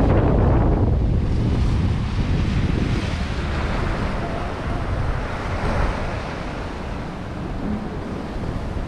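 Sea surf breaking and washing over flat coastal rocks, with wind buffeting the microphone as a low rumble. The sound eases off gradually toward the end.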